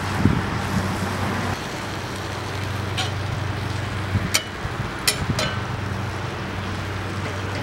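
Sliced beef sizzling on a very hot skillet over a steady low hum, with a few sharp metal clicks of the spatula against the pan from about three seconds in.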